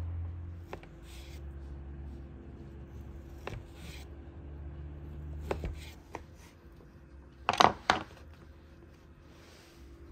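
Food-preparation handling noises: scattered sharp clicks and knocks a few seconds apart, with a louder double knock near the end, over a low steady hum that fades out after about six seconds.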